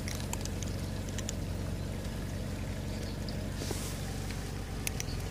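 A cat crunching dry kibble: sharp, crisp crunches, several in the first second or so and a few more near the end. Under them runs a steady low hum, the loudest sound, with a brief rustle just before four seconds in.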